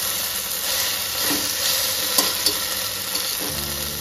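Onions, green chillies and cashews sizzling as they fry in a stainless-steel pressure cooker, stirred with a perforated steel ladle that clicks against the pot a few times.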